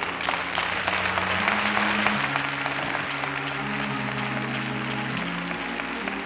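Congregation applauding, a dense patter of clapping that eases a little toward the end, over music holding sustained low chords that change a few times.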